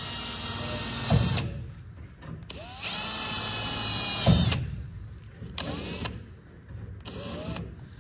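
Cordless drill boring holes up through a car body panel for Dzus fasteners. It runs in two bursts of about two seconds, each with a steady whine that spins up and winds down and ends in a knock, then two short blips near the end.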